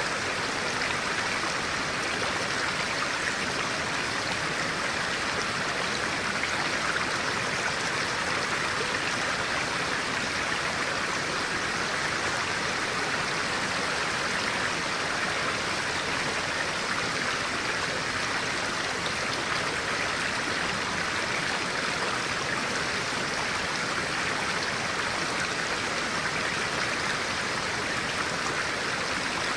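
Clear-water stream flowing, a steady, even water sound with no break or change.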